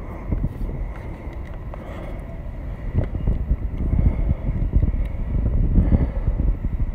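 Wind buffeting the microphone: a gusty, uneven low rumble that grows louder about three seconds in.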